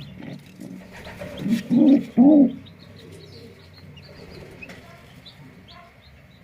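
Pigeon cooing in three low, loud pulses about a second and a half in, followed by a few faint high chirps.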